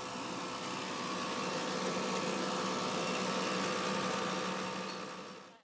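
Old fuel dispenser pump running as petrol is pumped through the nozzle into a motorcycle's tank: a steady motor hum with rushing fuel, fading away near the end.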